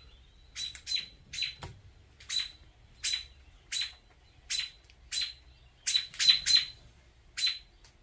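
Mother American robin giving about a dozen sharp alarm calls, spaced under a second apart and bunched more quickly around six seconds in. She is scolding a person near her nest of chicks.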